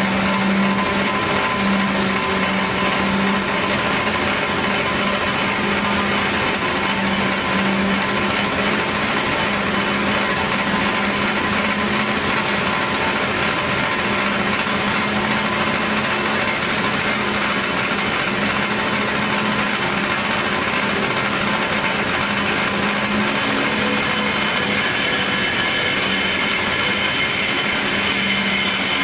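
Hyd-Mech S-20A Series II horizontal band saw running: a steady machine hum from the motor and blade drive. A few higher whining tones join near the end.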